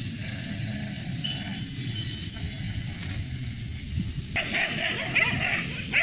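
Dogs fighting: a low rumbling scuffle, then from about four seconds in, higher-pitched yips and whimpers.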